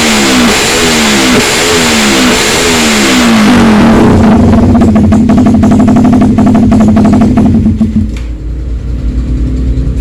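Suzuki Satria FU motorcycle with a swapped-in GSX engine being revved: a string of quick throttle blips, about two a second, then held at high revs for about four seconds before dropping back toward idle near the end.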